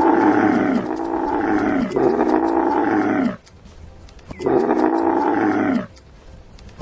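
Camel bellowing: loud, drawn-out groaning calls that fall in pitch, three in a row, then another after about a second's pause.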